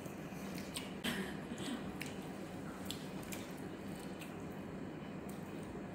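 Faint eating sounds: chewing, and fingers picking through rice and fish in sauce, with scattered small clicks and soft wet sounds.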